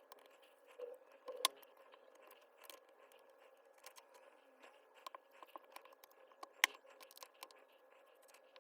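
Small metal parts and hand tools clicking and scraping, in scattered light taps with two sharper clicks, about one and a half seconds in and near seven seconds in, as a hammer drill is worked on by hand.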